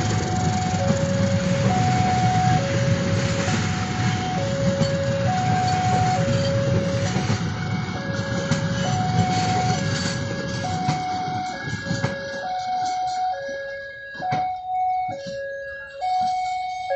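Railway level-crossing warning alarm sounding a two-tone signal that alternates low and high about once a second, over the rumble and wheel-on-rail noise of a passing passenger train. About eight seconds in a second, higher-pitched two-tone alarm joins. The train noise drops away about twelve seconds in as the last coaches clear the crossing, leaving the alarms and a few clacks.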